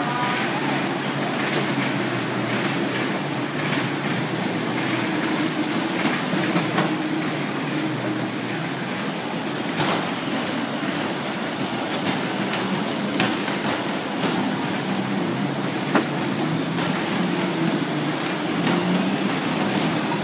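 Battery-powered toy car running, a steady whirring rattle with scattered clicks and knocks from its motor and wheels.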